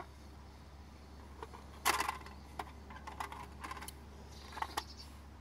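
Scattered light clicks and clinks, with a louder crackling rustle about two seconds in and a few more clicks near the end, over a steady low hum.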